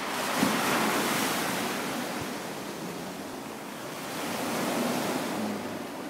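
Sea waves breaking and washing up a shingle beach, the surf swelling twice.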